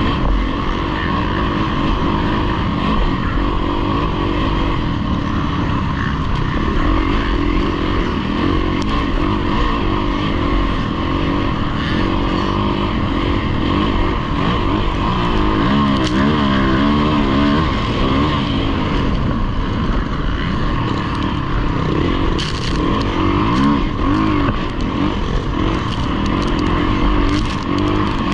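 Dirt bike engine heard from on board the rider's own bike at race pace. The engine's pitch rises and falls as the throttle is worked over rutted dirt track, with a clear rev up and down about halfway through and again a little later.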